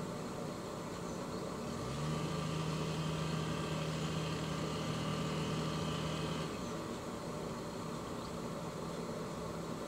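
Motor cruiser's engine idling, then throttled up about two seconds in: its pitch rises quickly and holds steady for about four and a half seconds before it drops back to idle.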